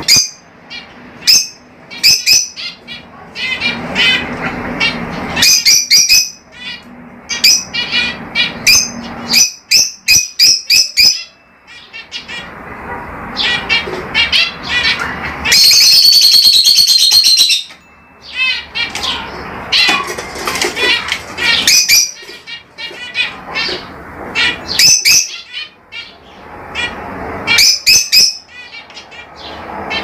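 Lovebirds calling: clusters of rapid, sharp, high chirps and squeaks. About halfway through comes one long, loud, harsh screech lasting about two seconds.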